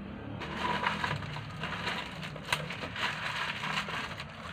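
Something crinkly being handled: a steady crinkling and crackling with scattered sharp clicks, the sharpest about two and a half seconds in.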